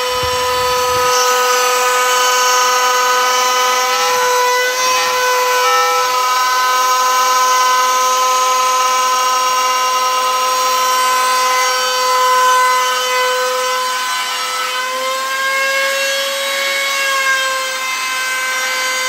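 Router spindle of a homemade CNC machine running at high speed with a steady high whine, its end mill cutting a slot into a softwood board. The whine shifts slightly in pitch about four seconds in and again for a few seconds near the end.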